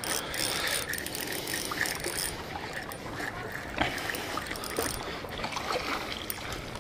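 Water splashing as a hooked bass is brought in through shallow water to the bank, with scattered clicks and rustling from the angler's handling.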